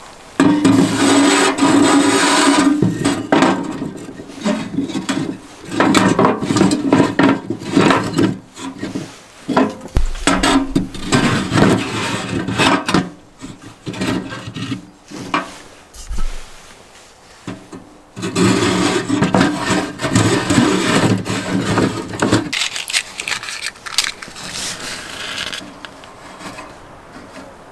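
A hand tool works wood in rapid, rasping back-and-forth strokes, in several bouts with short pauses between. The strokes fade to quieter scraping over the last few seconds.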